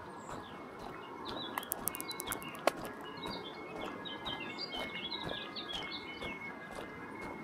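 Small songbirds chirping and twittering, busiest in the second half, over a steady background hiss. A quick run of high ticks comes about one and a half seconds in, and a single sharp click about a second later.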